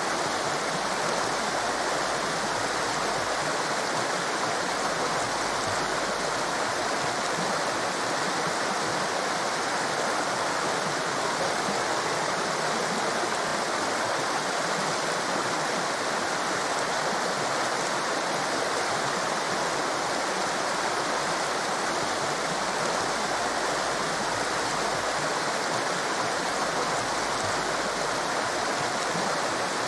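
Torrent of rushing white water making a steady, unbroken hiss that does not change.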